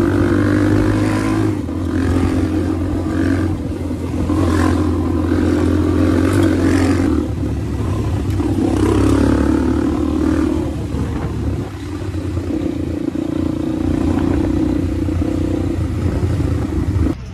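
Small motorcycle's engine running as it is ridden along a street, its note shifting a few times with throttle and gear changes.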